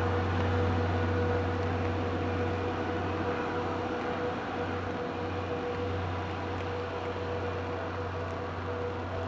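Steam-hauled passenger train pulling away, heard as a steady low hum with a fixed tone over a noisy rumble, slowly fading as it recedes.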